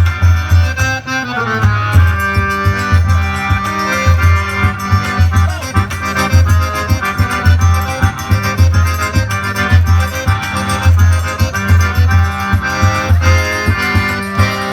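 Live forró band playing an instrumental passage led by accordion, over a driving bass and drum beat.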